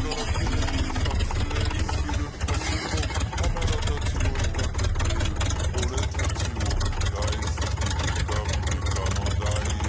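An engine idling steadily with a low rumble and a dense, even clatter.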